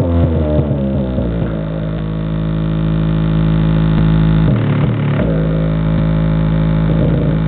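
Loud bass-heavy music played through a subwoofer in a homemade enclosure built from a vacuum cleaner box, held low notes sustained with a short change in the notes about two-thirds of the way through.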